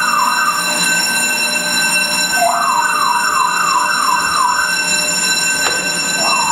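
School fire alarm sounding: a steady high-pitched tone, overlaid by bursts of quick rising whoops, about three a second, that come in groups roughly every four seconds. A single sharp click near the end.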